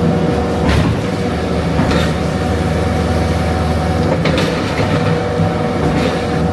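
Skid steer engine running steadily under load with a steady whine, and a few metal clanks as the machine works.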